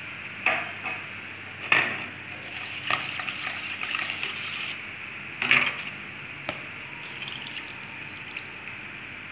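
Plastic kitchenware clattering: bowls, a plastic sieve and chopsticks knocking against each other, with a few sharp knocks and a stretch of busier clinking and liquid swishing in the middle.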